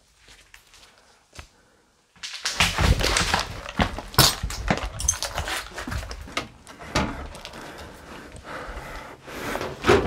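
Close handling noise: rustling, knocks and thumps right at the microphone as the handheld camera is carried and jostled, starting about two seconds in after a few faint clicks.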